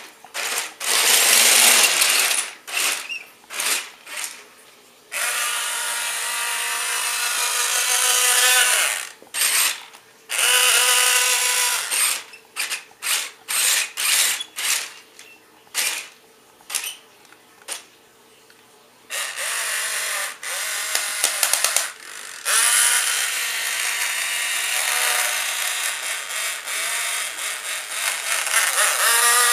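Tyco Monster Traxx RC toy's electric drive motors and gearboxes whining, on a fully charged battery and the high setting. It runs in many short stop-start bursts and a few longer runs of several seconds as the toy drives and climbs.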